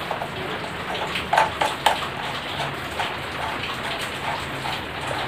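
Plastic and wire parts of a wall fan being handled and pressed together by hand: scattered light clicks and rattles, with two sharper knocks about one and a half and two seconds in, over a steady hiss.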